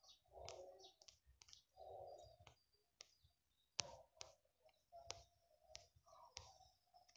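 Faint, sharp clicks, about ten of them at irregular intervals, over a quiet background.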